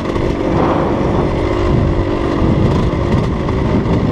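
Dirt bike engine with a Rekluse auto-clutch, off the throttle and engine braking as the bike rolls along. The engine gives a steady drone for about the first second and a half, then an uneven low rumble takes over.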